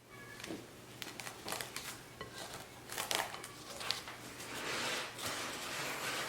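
Kitchen food-preparation sounds: a run of light clicks and clinks with rustling scrapes, heaviest in the second half, over a faint steady hum.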